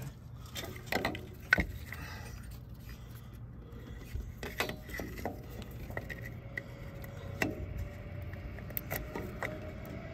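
Intermittent clinks, taps and knocks of metal tools and parts being handled, with a sharp knock about a second and a half in, over a faint low hum.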